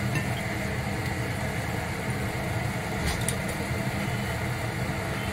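Chicken soup at a rolling boil in an open clay pot: a steady, unbroken bubbling rumble.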